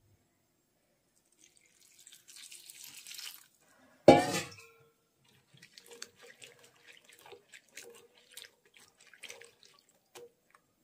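Chopped cauliflower, peas and tomato being mixed by hand in a steel bowl: many small irregular clicks and rustles. About four seconds in there is one loud sudden knock with a short ring, the loudest thing here.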